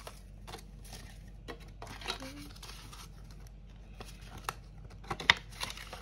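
Paper banknotes and a budget binder's cash envelopes being handled: soft rustling and crinkling with scattered light taps, and a sharper click about five seconds in.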